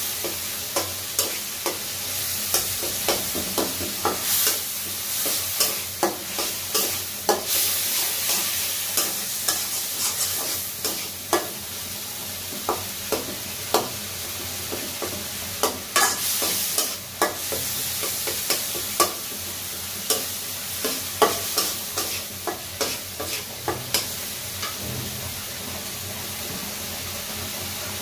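Metal spatula scraping and knocking against a wok as tomatoes and green chillies fry in oil, with a steady sizzle underneath. The clinks come irregularly, at times several a second, and stop about four seconds before the end, leaving the sizzle alone.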